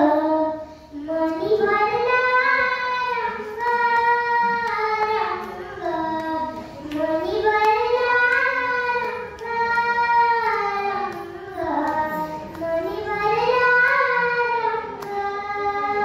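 A young girl singing a Marathi devotional pada solo, in long held notes, each phrase of several seconds rising in an arc and falling away.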